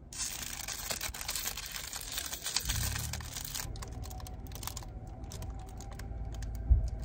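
Plastic food wrapper crinkling as it is handled and opened, dense crackling for about the first three and a half seconds, then sparser and quieter.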